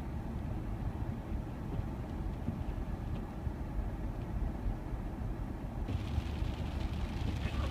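Car driving on a hail-covered, slushy road, heard from inside the cabin: a steady low rumble of engine and tyres. About six seconds in the sound changes suddenly and a hiss is added over the rumble.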